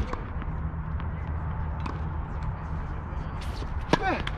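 Tennis balls struck by racquets during a rally: sharp pops with a lighter tap between them, the loudest hit near the end, followed by a short sound dropping in pitch. A steady low rumble lies underneath.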